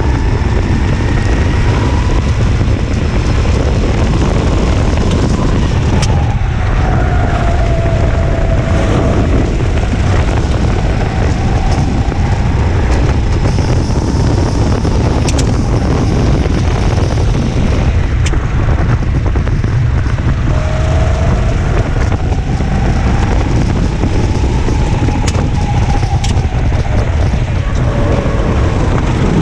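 Go-kart engine heard onboard during a race, its revs rising and falling through the corners over a loud, steady rumble. There are a few sharp clicks along the way.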